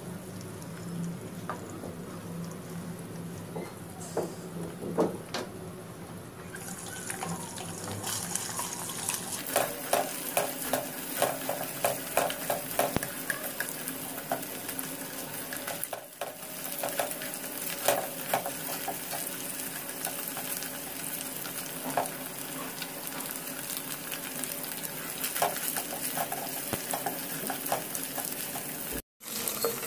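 Beaten eggs sizzling in hot oil in a nonstick frying pan while a plastic spatula scrapes and taps through them, breaking them into scrambled pieces. The sizzle gets louder about eight seconds in, and the spatula strokes come as many quick clicks.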